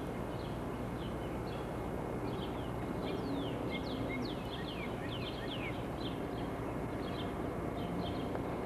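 Wild birds singing outdoors: repeated short high chirps, with a run of quick downward-sliding notes in the middle, over a steady background hiss.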